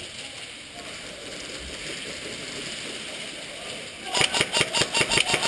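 Faint background noise, then about four seconds in an airsoft gun fires a rapid, even string of sharp shots, about seven a second.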